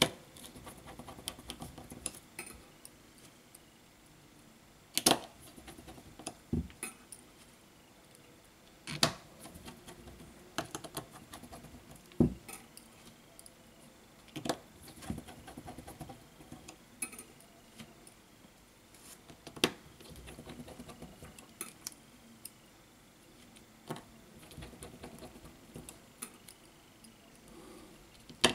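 Light, irregular clicks and taps of hands and a small screwdriver handling an opened smartphone's frame and internal parts. A handful of sharper clicks stand out, with quiet handling noise between them.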